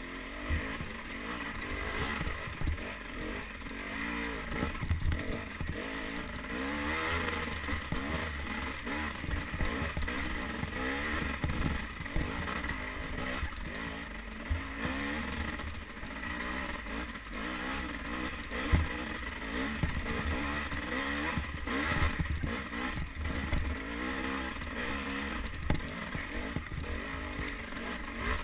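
Dirt bike engine revving up and down over and over as it is ridden along a rough trail, heard from on the bike itself. Scattered knocks and rattles come from the bike jolting over bumps, with one sharp knock about two-thirds of the way through.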